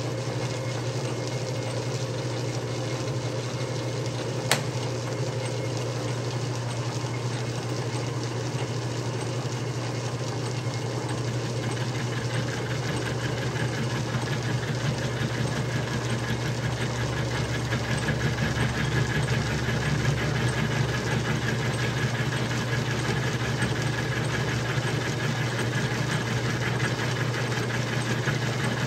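Atlas TH54 lathe running, its chuck turning a cutter that mills a groove in a shaft clamped in a vertical milling attachment: a steady machine hum. A sharp click comes about four and a half seconds in, and the cutting noise grows louder and higher from about twelve seconds in.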